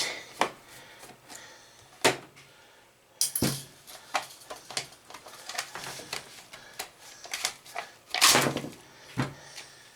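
Plastic hair dryer casing being handled and pulled apart by hand: scattered clicks and knocks, with two longer scraping rasps about three and eight seconds in.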